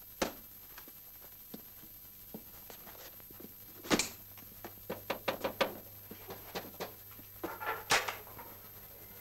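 Knocking on a door: a couple of single knocks, then a quick run of sharp raps about five seconds in. Near the end comes a louder clatter as the door latch is worked and the door is opened.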